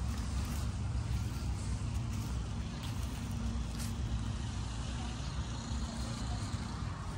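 Steady low rumble of a motor vehicle engine running, with a faint steady hum underneath.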